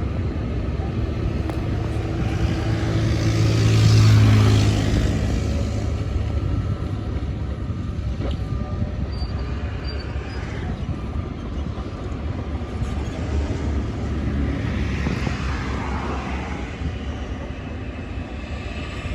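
Shantui DH17 bulldozer working, its diesel engine running under load with the rumble of the tracked machine; the engine swells louder about four seconds in, then settles back to a steady drone.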